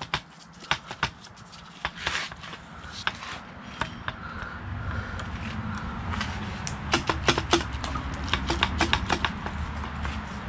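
Clicks and knocks of tools and engine parts being handled during engine disassembly, coming thickest in the second half. A low rumble builds underneath from about halfway through.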